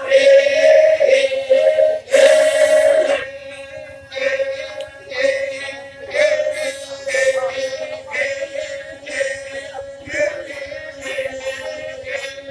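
Group of voices chanting a ma'badong, the Toraja funeral chant: slow sung phrases over a steadily held note, loudest in the first few seconds.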